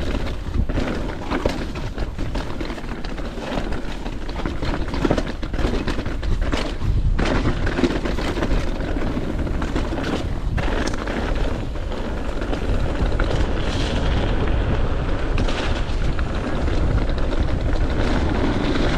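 Wind buffeting the microphone while a downhill mountain bike rattles and clatters over rough, wet trail at speed, with frequent sharp knocks from the bike taking hits.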